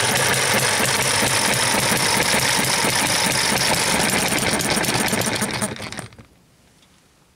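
Eachine ET1 model hit-and-miss gas engine running fast with a rapid, steady mechanical clatter, then winding down and stopping about six seconds in.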